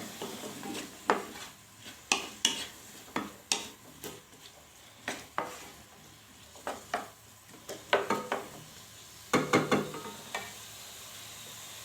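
A utensil stirring sliced onion and red and green peppers frying in olive oil in a pot: irregular clicks and scrapes against the pot over a light sizzle. The stirring stops near the end, leaving the sizzle.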